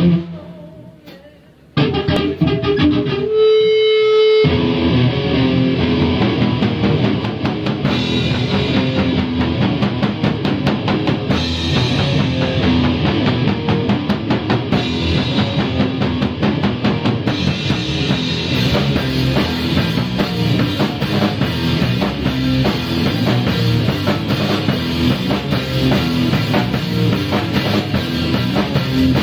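A rock band playing live on electric guitar and drum kit. The guitar comes in alone about two seconds in, with a held note, and the drums and full band come in a couple of seconds later and play on steadily.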